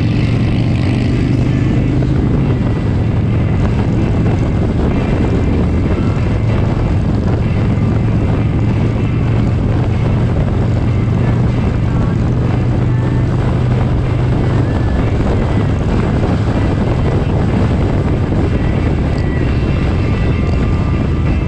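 Motorcycle engine running steadily at cruising speed under heavy wind rush on the microphone, a continuous even drone.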